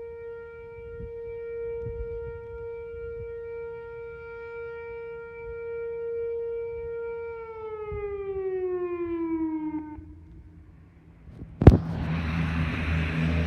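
Whelen WPS-2904 electronic siren sounding its noon whistle: a steady single tone that, about seven seconds in, drops smoothly in pitch and fades out a few seconds later. A sharp click follows near the end, then a steady rushing noise.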